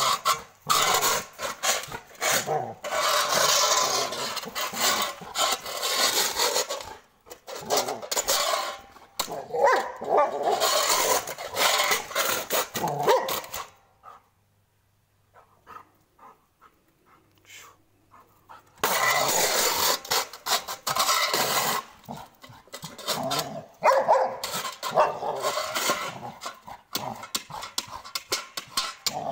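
A Labrador growling and barking in play-aggression as it paws and mouths a stainless steel plate, the plate scraping and clattering on concrete. The noise stops for about five seconds midway, then starts again.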